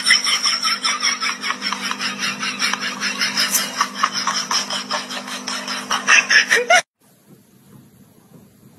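Rapid, unbroken high-pitched laughter over a steady low hum. Both cut off abruptly about seven seconds in, leaving only faint room sound.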